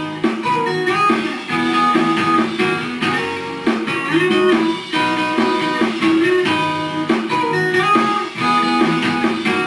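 Music: an instrumental break of a song, with plucked guitar playing the melody over the band and no singing.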